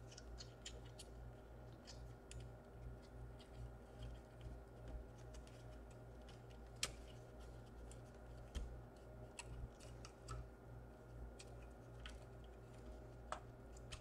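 Faint, scattered small clicks and taps of fingers handling ribbon cables and small plastic connectors inside an opened laptop, with a few sharper clicks, over a steady low electrical hum.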